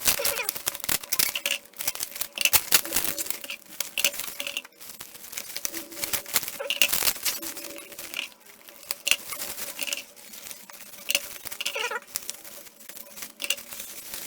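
Plastic wrapping and tape on a trading-card repack being torn and crinkled open by hand: irregular crackling and tearing, with short squeaky noises every couple of seconds.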